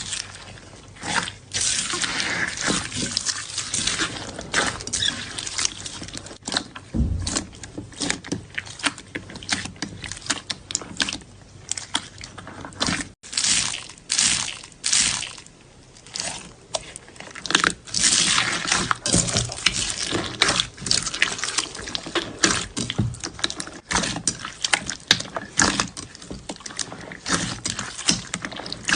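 Slime being squeezed and pressed by hand: a dense, irregular run of short sticky clicks and pops.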